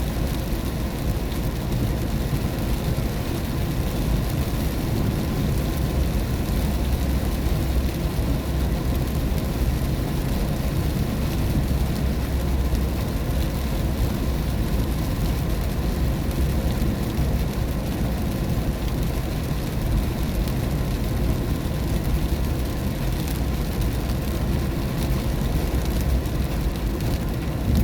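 Steady road and tyre rumble inside a car cabin while driving on a highway in the rain, with a hiss of rain and wet road over it.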